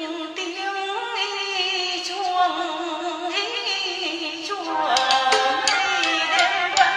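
Vietnamese chèo folk-opera music: a sustained, wavering melody line over accompaniment, with sharp percussion taps joining about five seconds in.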